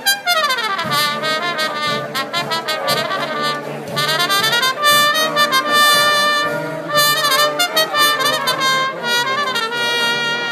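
Wind band playing, led by a solo trumpet out in front, with a fast falling run at the start and a rising run about three seconds in.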